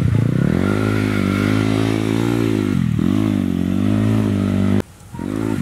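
Dirt bike engine revving under throttle, its pitch climbing, dipping about three seconds in, then rising again. The sound drops out abruptly for a moment near the end.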